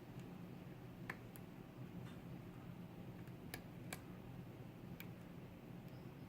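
A lock pick working the pins of a pin-tumbler challenge lock under very light tension: scattered small clicks, about seven, at uneven intervals, over a steady low hum.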